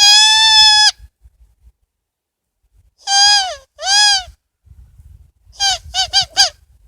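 Turkey yelps blown on a diaphragm mouth call. One long steady note comes first, then two short arched yelps about three seconds in, then a quick run of four short yelps near the end.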